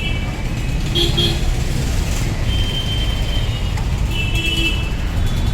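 Steady street traffic rumble, with several short, high-pitched beeps sounding over it.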